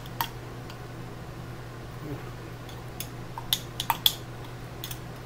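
A jar of horseradish being handled and its lid and seal worked open: a few sharp clicks and taps, bunched about three to four seconds in, over a steady low hum.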